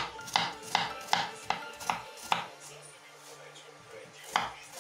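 Kitchen knife chopping a peeled apple into cubes on a wooden cutting board: a run of sharp knocks of the blade on the board, about two or three a second, then a pause of about two seconds before the chopping starts again near the end.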